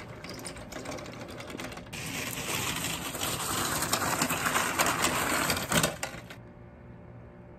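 Wheels of a push mower and then of a wheeled pressure washer rolling over a concrete driveway with a dense clatter. The clatter grows louder from about two seconds in and cuts off about six seconds in.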